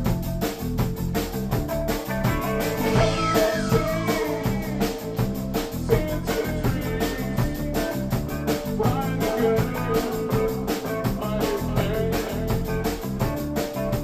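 Instrumental background music with a steady, quick beat.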